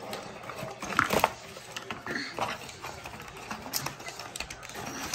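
Handling noise of small plastic toy parts on a tabletop: scattered light clicks and knocks, with two sharper clicks about a second in, and a paper card being handled.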